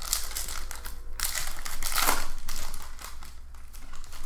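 Foil trading-card pack wrapper crinkling as hands tear it open, loudest about two seconds in.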